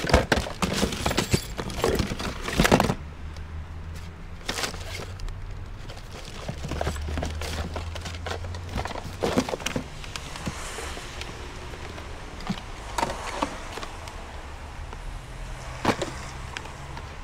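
Knocks and clatter of discarded household junk and electronics being handled and shifted in a hard-rubbish pile, busiest in the first few seconds, over a low rumble that comes and goes.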